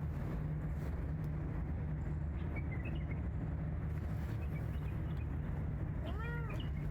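Steady low rumble of distant traffic with a few faint bird chirps, and a single short meow from a cat, rising then falling, near the end.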